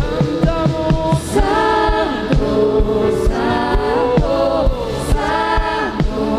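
Live worship music: voices singing long held notes that slide between pitches, over a steady low accompaniment with a regular beat.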